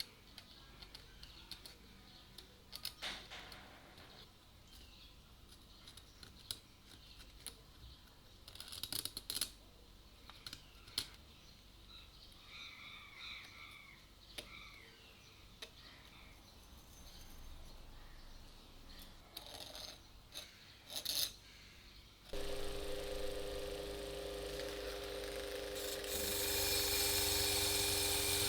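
Scattered small clicks and taps from handling small parts and tools, then a small electric motor starts suddenly about 22 seconds in and runs steadily with a hum. A hiss joins it and grows louder near the end.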